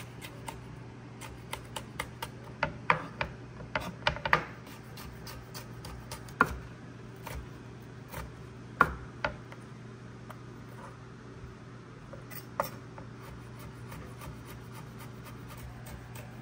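Irregular clicks and knocks of food preparation, as utensils and containers are handled, over a steady low hum. A flurry of taps comes a few seconds in, and a few single louder knocks follow later.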